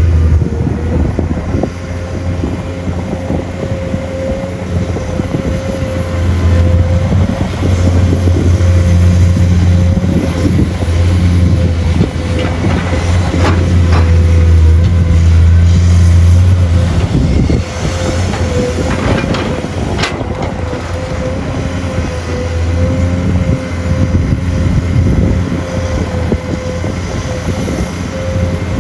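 Excavator engine working under load as it digs and dumps soil into a truck, growing louder for several seconds mid-way and then easing, over a steady high whine. A few sharp knocks come between the engine swells.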